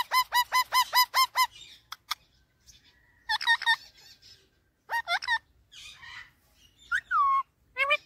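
Indian ringneck parakeet calling: a rapid run of sharp, repeated screeches, about five a second, that stops a second and a half in, followed by short groups of two to four calls and one longer falling call near the end.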